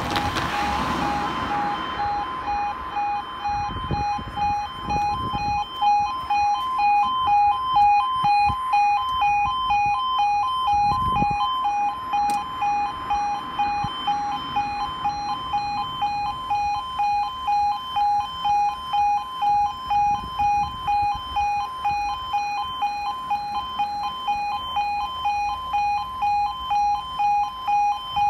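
UK level crossing warning alarm on a manually controlled barrier (MCB-CCTV) crossing: a two-tone yodel alternating between two pitches about twice a second, sounding steadily while the barriers are down. A few low thuds come in the first dozen seconds.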